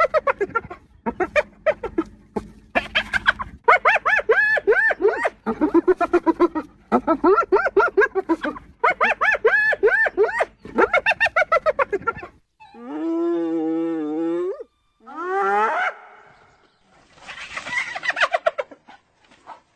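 Hyena giggling: rapid runs of short, high yelps, each rising and falling, for about twelve seconds. Then a long wavering call, a shorter call that rises and falls, and a few rougher calls near the end.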